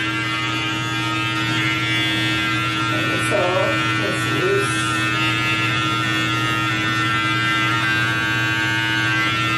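Electric hair clippers running with a steady buzz while cutting hair close to the scalp. A voice is heard briefly about three seconds in.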